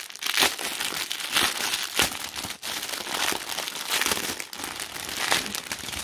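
Clear plastic bags of diamond-painting drills crinkling as they are handled, with irregular rustles and a few sharper crackles, the strongest about half a second and two seconds in.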